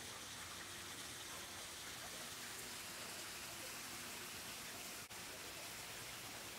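Rock waterfall spilling steadily into a swimming pool, an even rush of splashing water, with a brief break about five seconds in.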